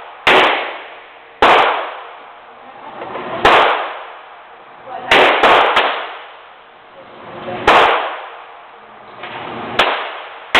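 Ruger Mark III semi-automatic .22 LR pistol firing about eight single shots at an uneven pace, with three in quick succession about five seconds in; each shot is a sharp crack.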